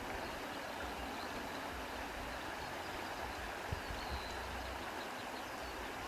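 Soft wind blowing, a steady even rush with little change in strength.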